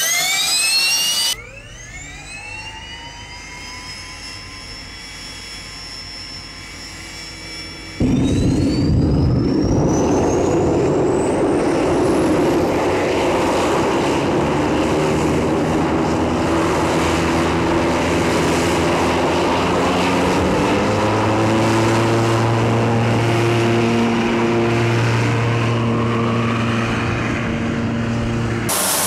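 Small gas turbine engine of a Honda Z jet car, running on Jet B fuel, starting up: a whine climbs steeply in pitch as the turbine spools up and settles into a steady high whine. About eight seconds in it jumps to a much louder jet roar, with a whine rising in pitch for several seconds as the turbine runs up, then holds a steady roar while the car drives.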